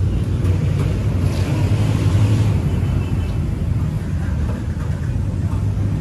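Ducati SuperSport's 937 cc Testastretta L-twin idling steadily through an Austin Racing aftermarket exhaust.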